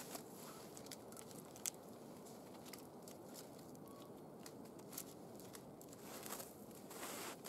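Faint crunches and a few scattered sharp clicks as a wooden log is handled and settled onto a rope-lashed log frame.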